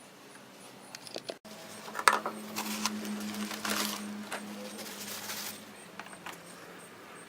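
Hands working at the engine's oil filler, with plastic oil bottle and fill cap being handled. A sharp clack comes about two seconds in, then a few seconds of clinking and rustling.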